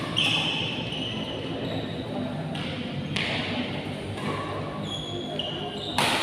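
Badminton rally: several sharp racket-on-shuttlecock hits, the last about six seconds in, with short high squeaks of shoes on the court between them.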